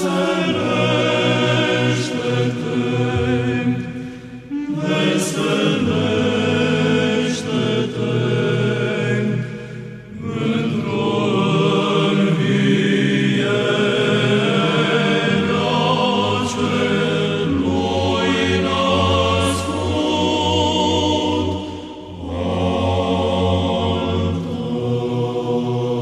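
A choir singing a slow chant in long sustained phrases, with short breaths between phrases about four, ten and twenty-two seconds in.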